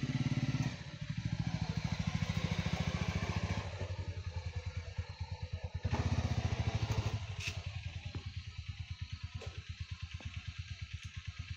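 Small motorcycle engine running at low speed, its exhaust pulsing in a steady low rhythm as it comes along the path. It grows louder about six seconds in and then eases off toward the end.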